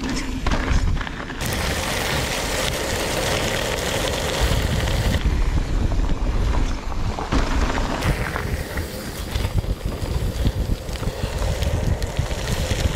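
Wind rushing over the microphone with a low rumble of travel, broken by abrupt cuts about a second and a half, five and eight seconds in.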